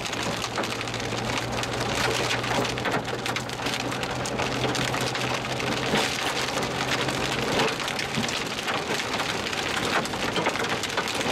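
Rain mixed with hail hitting the roof and windshield of a vehicle, heard from inside the cab as a dense patter of many sharp hits. A low steady hum runs underneath and stops about eight seconds in.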